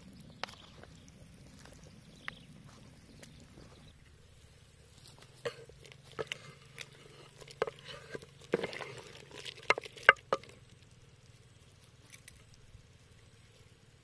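Wooden spoon scraping and knocking against a coconut-shell bowl and a clay pot as greens are pushed into a soup and stirred: scattered light clicks and knocks, bunched in the middle, the sharpest about ten seconds in.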